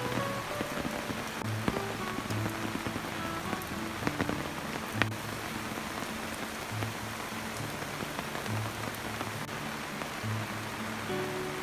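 Steady rain falling on leaves and the surface of a pond, an even hiss with a few louder, sharper drops.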